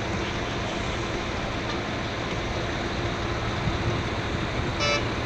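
Steady wash of road traffic from busy highways and overpasses, with a brief high beep near the end.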